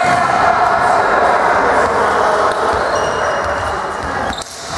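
Volleyball match in a sports hall: overlapping voices of players and spectators echoing in the hall, with a ball bouncing on the court floor. The noise dips briefly near the end.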